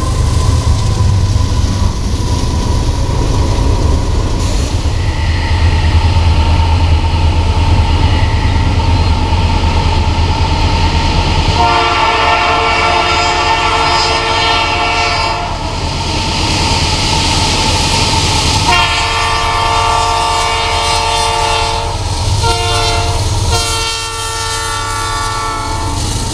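A freight train rumbling past on the rails, then a Canadian Pacific diesel locomotive's air horn sounding as it approaches: two long blasts, a short one and a long one, the grade-crossing signal.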